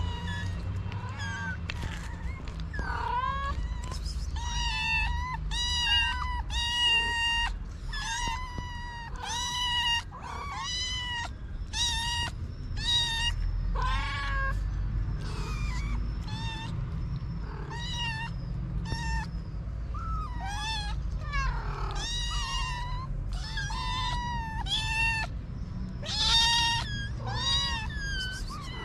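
Several hungry stray kittens meowing over and over at a person's feet, begging for food, their high calls following one another almost without a break. A steady low rumble lies beneath.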